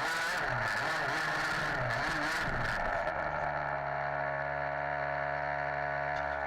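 Two-stroke petrol engine of a 1/5-scale HPI Baja 5B RC buggy, revving up and down for about three seconds, then holding a steady note.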